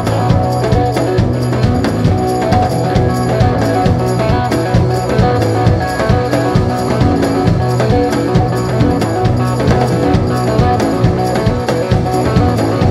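Rock band playing: a drum kit keeps a steady beat under electric guitar, bass and keyboards.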